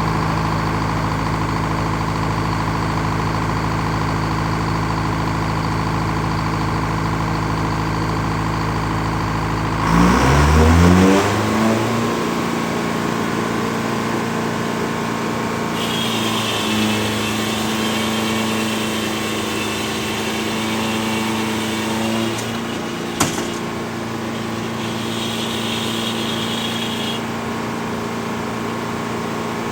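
An engine running at a steady low speed revs up about ten seconds in, its pitch rising, then holds a higher steady speed. A high whine comes and goes twice in the second half, and there is one sharp click.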